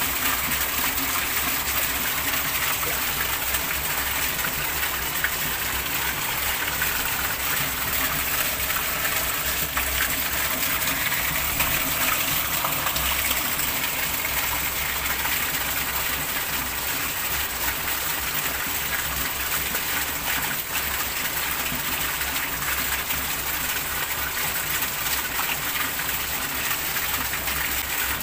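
Heavy rain pouring steadily onto shallow water and tiles, a dense, even hiss of splashing drops.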